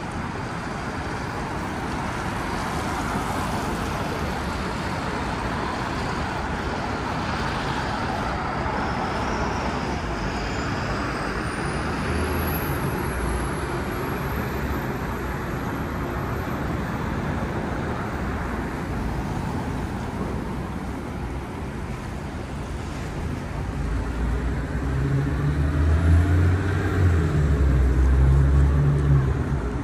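Traffic on a busy city avenue: a steady wash of passing cars. Near the end a heavy vehicle's engine rumbles close by and grows louder.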